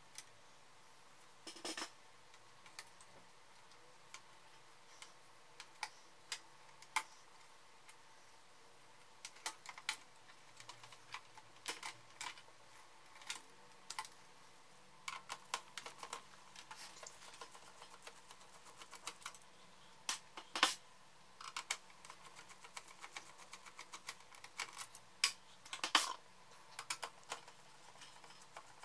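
Irregular small clicks, taps and clatter of hands and a screwdriver handling the plastic and metal parts and circuit board of a laser printer being taken apart. They are sparse at first and come thicker and quicker in the second half.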